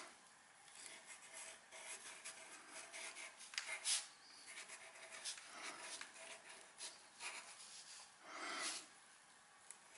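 Pencil scratching faintly on textured drawing paper in short, irregular strokes as a signature and date are written.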